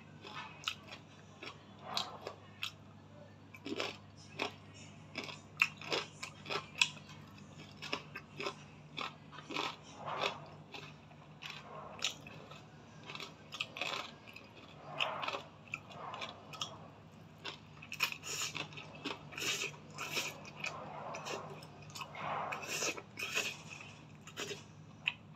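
A person chewing a mouthful of noodles close to the microphone: a run of many short, irregular wet clicks and crunches.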